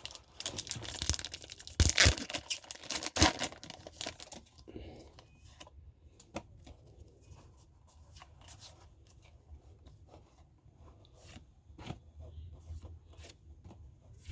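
Foil Pokémon booster pack wrapper being torn open: dense crinkling and tearing for the first four seconds or so, then quieter scattered crinkles and clicks for the rest.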